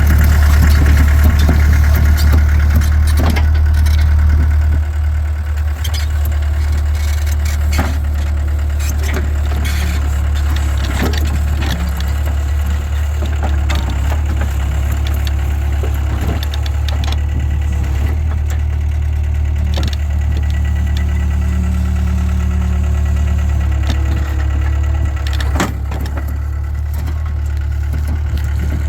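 Takeuchi TL26 track loader's diesel engine running steadily while working, a strong low drone, with occasional clanks and knocks scattered through. It is a little louder for the first few seconds.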